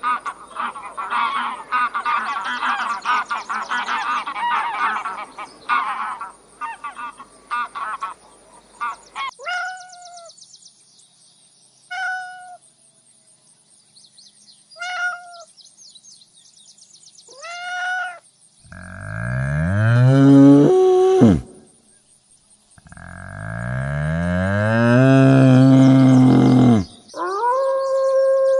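A run of farm animal calls. It opens with several seconds of dense chattering and chirping, then four short, high calls spaced a few seconds apart, then two long, low moos from a cow, the second the longer. It ends with a higher, drawn-out call.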